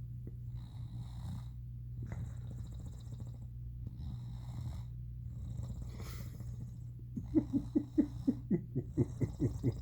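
Cat purring loudly, a steady low rumble like snoring, with breathy in-and-out rushes every second or so. About seven seconds in, a run of louder quick pulses starts, about four or five a second.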